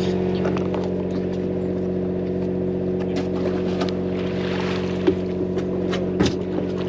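Charter fishing boat's engine running with a steady drone. Scattered light clicks sound over it, a brief hiss comes about four seconds in, and two sharper knocks come about five and six seconds in.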